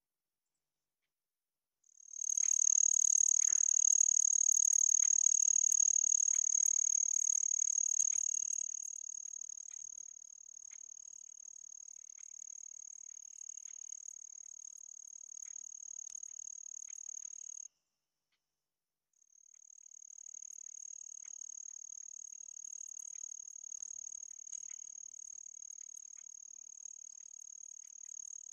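Crickets trilling in one steady, high-pitched continuous chorus, with a few faint clicks mixed in. It starts suddenly about two seconds in, loud at first, then fainter from about ten seconds on. It cuts out for a second and a half near the middle and then resumes.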